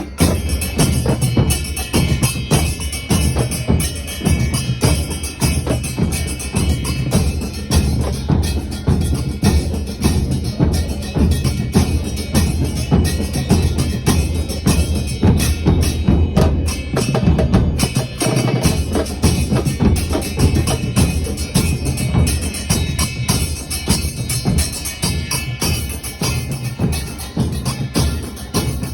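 Bombo con platillo, a bass drum with a cymbal mounted on top, played in a football-fan murga. It beats out a fast, driving stadium-chant rhythm of deep drum hits and cymbal crashes. The low drum drops out briefly a little past the middle.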